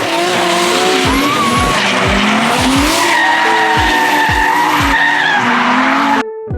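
Drift car sliding: tyre squeal and engine noise over background music with a steady deep beat about twice a second. The car sound cuts off suddenly near the end, leaving only the music.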